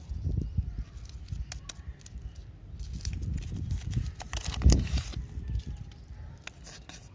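Plastic candy wrapper being opened and crinkled by hand, with scattered clicks and handling noise; the rustling is loudest a little past four seconds in.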